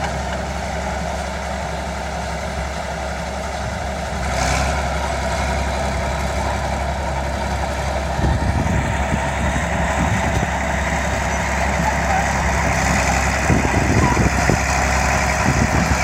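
Vintage crawler bulldozer engine running steadily, becoming louder and rougher in the second half as the dozer moves forward pushing soil with its blade.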